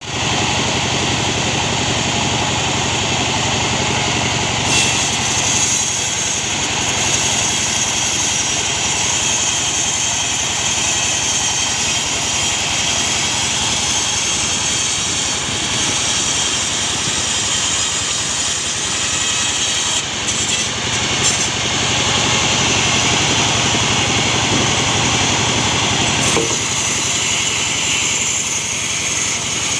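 Band sawmill running with steady, loud machine noise. The sound brightens about five seconds in and dulls again near the end.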